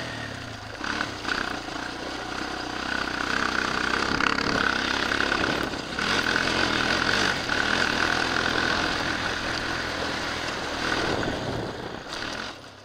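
Suzuki LT-Z400 quad's single-cylinder four-stroke engine running under throttle over a dirt track, heard from a helmet camera, with a few brief dips in the engine note. The sound fades out near the end.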